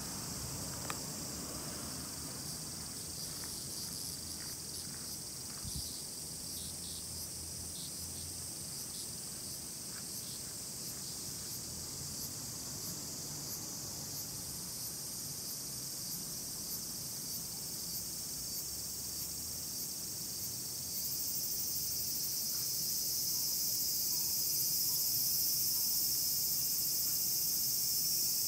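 Chorus of insects chirring in a steady high-pitched drone, growing louder about three-quarters of the way through.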